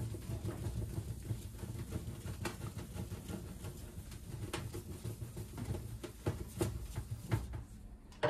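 Rolled felt etching blanket scrubbing soy sauce over a copper plate to degrease it: a soft rubbing with scattered light taps, over a steady low hum. The rubbing stops about a second before the end.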